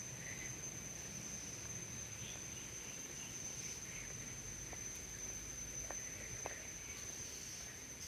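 Insects droning steadily at one high pitch in tropical trees, with faint scattered bird chirps and a few soft clicks.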